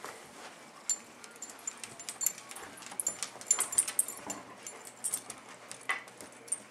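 Black Labrador puppy and older black Lab tussling in play: a busy run of jingling and clicking from their collar tags and leash hardware.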